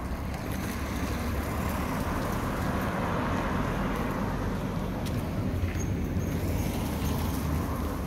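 City street traffic: a steady rumble of motor vehicles, with one passing that swells about three seconds in and fades again.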